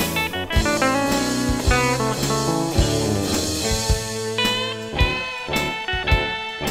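Instrumental blues played on electric guitars, with the melody picked over bass guitar and a steady drum beat.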